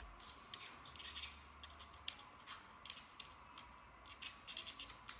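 Faint, irregular light clicks and scratchy rustles of hands handling small objects, a dozen or so scattered through the stretch.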